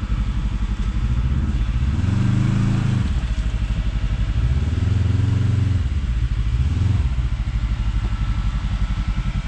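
Side-by-side UTV engine running, revved up twice: a short rise about two seconds in and a longer one around the middle, settling back to a steady low run in between and after.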